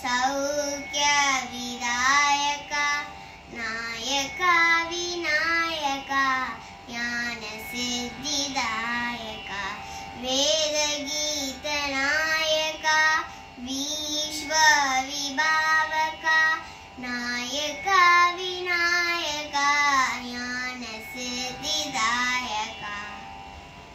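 A young girl singing a Carnatic song in raga Hamsadhwani, with sliding, ornamented notes and short breaks between phrases.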